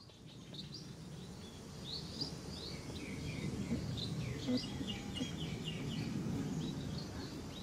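Many short, high-pitched chirps and squeaks, some in quick runs, over a steady low background rumble.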